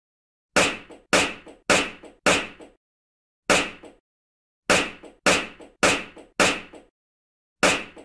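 Champagne cork popping out of the bottle again and again: ten sharp pops, each with a small second tick just after. They come in two quick runs of four about half a second apart, with a single pop between the runs and another near the end.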